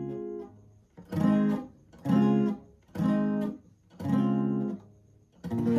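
Acoustic guitar tuned a half step down, strumming bar chords: a chord dies away, then four short chords about a second apart, each damped after about half a second, and a fuller chord struck near the end left to ring.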